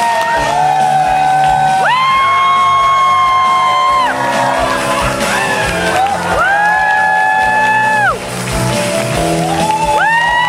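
Music playing in a hall while the audience cheers, with long high-pitched screams held about two seconds each, three times over, each falling away at its end.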